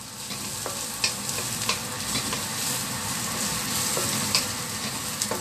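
Sliced green chillies, garlic and dried baby shrimp (rebon) sizzling in a little oil in a stainless steel wok, stirred with a wooden spatula that scrapes and taps against the pan every second or so. The seasoning is being sautéed until fragrant, before the rice goes in.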